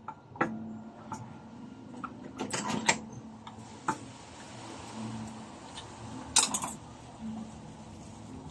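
Scattered clicks, knocks and clinks of parts and tools being handled, with the sharpest knocks in clusters about three and six and a half seconds in.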